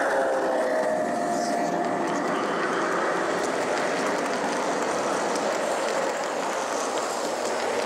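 Gauge 1 model train running on the layout, a steady rolling noise of wheels on track with a falling whine that fades out about two seconds in.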